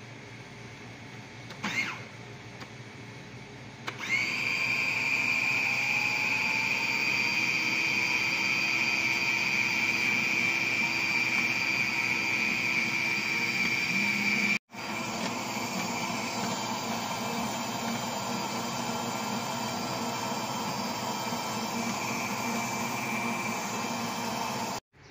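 Countertop food processor motor starting about four seconds in and running steadily with a high whine as it churns bread dough. The sound is briefly cut off once, about halfway through, then carries on at a slightly lower level.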